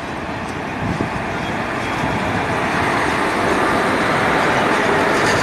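WAG-7 electric freight locomotive passing close by at the head of a double-stack container train: a steady rumble of wheels on rail that builds as it draws level.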